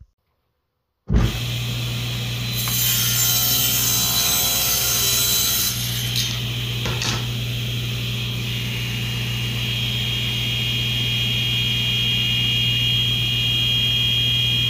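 Table saw running: its blade cuts through a piece of plywood for a few seconds, then spins freely with a steady high whine over the motor hum.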